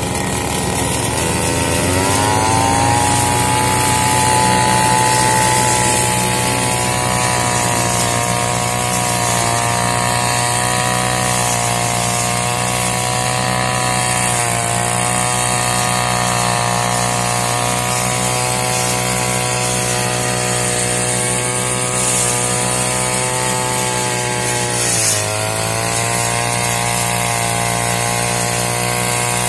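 Backpack brush cutter's 50 cc two-stroke engine running at high revs while it cuts grass. The pitch climbs about two seconds in, holds steady, then dips briefly near the end before rising again as the throttle is reopened.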